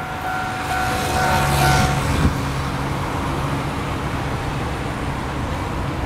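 Level-crossing warning bell ringing with a steady two-tone chime, then cutting off about two seconds in. A low hum and a single knock follow as the barrier arms lift, over road traffic noise.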